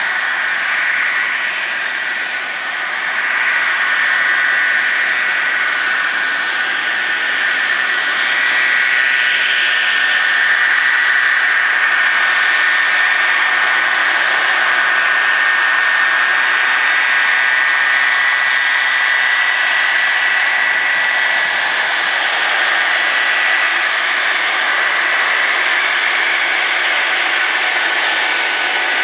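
Boeing 747-246F's Pratt & Whitney JT9D turbofan engines running: a steady jet roar with a high, steady whine. It grows louder about three seconds in.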